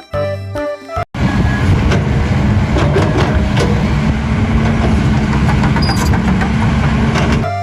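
A vehicle engine running steadily, cutting in abruptly about a second in after a short stretch of music.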